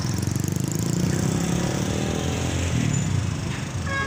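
A small motorcycle engine running close by, a low rumble with a fast pulse. Near the end a horn sounds briefly.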